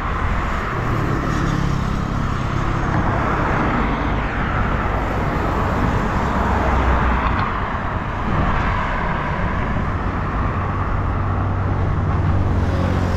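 Busy city road traffic: cars passing with a steady mix of engine and tyre noise, and a deeper engine hum growing stronger near the end.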